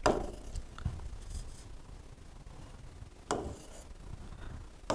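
Soft rubbing of a pen writing on an interactive touchscreen board, with a few brief taps.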